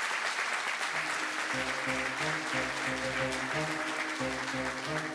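Crowd applauding, with background music coming in about a second in: a bass line and steady held notes play under the clapping.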